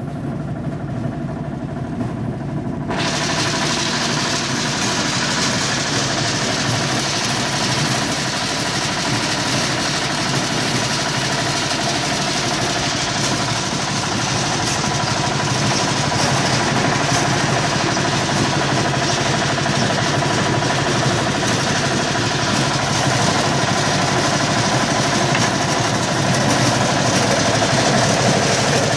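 Citrus grading machine running: its motor-driven conveyor and rotating perforated sizing drums make a steady mechanical noise with a low steady hum as the fruit pass through. The sound is duller for the first few seconds.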